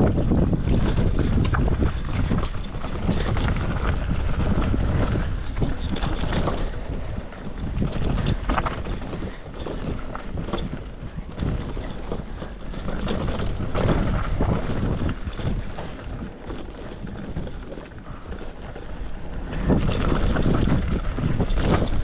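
Wind buffeting the microphone while a mountain bike rides a rough trail, with a steady low rumble and frequent rattles and knocks from the bike over the ground. It dips somewhat quieter in the middle and picks up again near the end.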